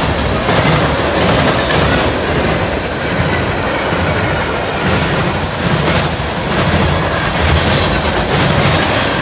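Freight train cars rolling past close by: a steady rumble of wheels on rail, with a repeating clickety-clack as the wheels cross rail joints.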